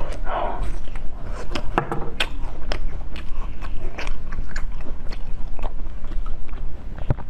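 Close-miked biting and chewing of soft, juicy fruit flesh such as peeled lychee, with many small sharp mouth clicks throughout.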